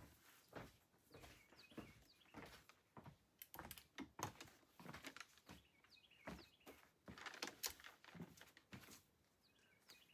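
Very quiet: scattered soft clicks and rustles of craft materials being handled, with a few faint bird chirps in the background.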